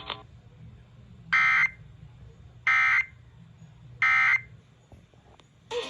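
Emergency Alert System end-of-message data bursts: three short, identical bursts of digital screech about a second apart, sent over the radio to mark the end of the alert.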